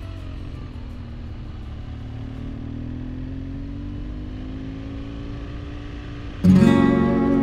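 Motorcycle engine running under way with wind and road noise, its note rising slowly. About six seconds in, acoustic guitar music comes in suddenly and louder.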